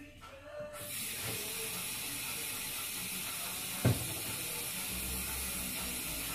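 A steady hiss starts suddenly about a second in and carries on, with a single knock near the middle.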